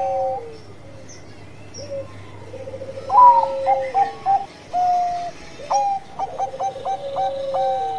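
Zebra dove (perkutut) singing its cooing song. A phrase ends with a falling trill just after the start. After a pause of about two and a half seconds comes a loud rising note, a run of short clipped coos and a held note, then a second phrase of quick notes rolling into a falling trill.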